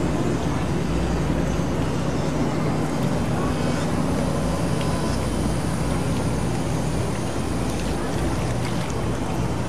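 A steady low engine hum under an even wash of outdoor noise, with no breaks or changes.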